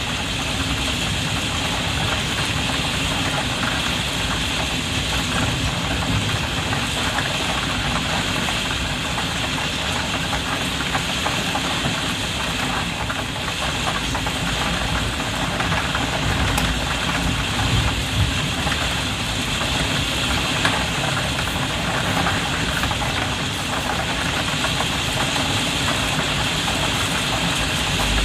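Heavy rain drumming steadily on a skylight window, heard from inside the room beneath, with a dense low rumble under the patter.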